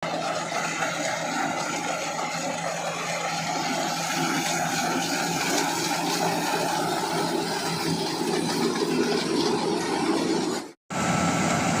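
Engine of a rice harvesting machine running steadily with a constant hum and a rattling, whirring haze; the sound cuts out for a split second near the end, then resumes.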